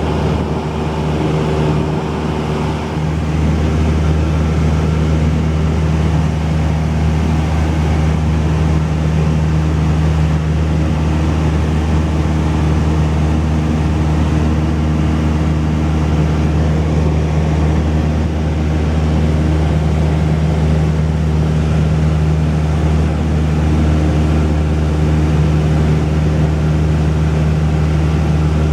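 Cessna 172's piston engine and propeller running steadily with a constant low drone, the low end getting a little stronger about three seconds in.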